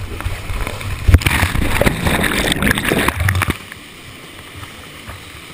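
Rushing canyon water splashing over a body-worn camera as a canyoneer slides down a natural rock water slide. It is loud, with spattering and knocks, for about three and a half seconds, then drops to a steadier, quieter rush of whitewater.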